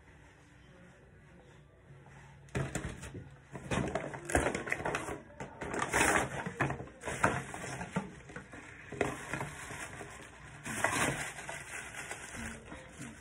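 Irregular rustling and crinkling handling noise from a curly wig being handled, in bursts starting a couple of seconds in.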